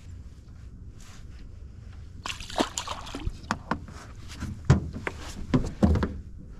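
A garfish hooked in the tail thrashing at the water's surface, splashing irregularly over and over from about two seconds in, with water sloshing against the boat.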